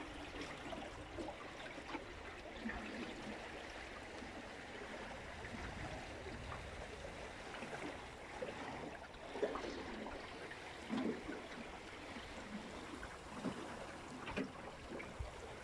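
Water rushing and gurgling along the hull of a small sailboat under way, with a few louder splashes of waves against the side, about nine, eleven and fourteen seconds in.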